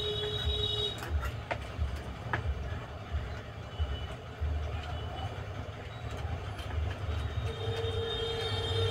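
Steady low background rumble with a droning steady tone in the first second and again from about three-quarters of the way through. A few faint clicks come as wire is pushed into the terminals of a plastic switchboard.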